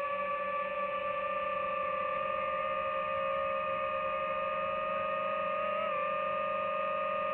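Camera drone's motors and propellers whining in flight: a steady pitched hum with a brief wobble in pitch about six seconds in.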